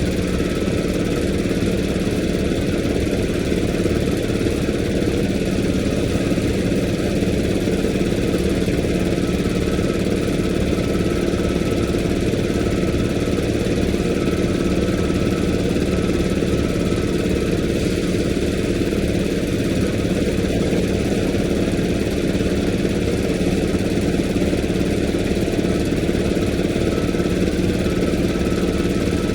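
Engine running steadily at idle, its pitch and level unchanging throughout.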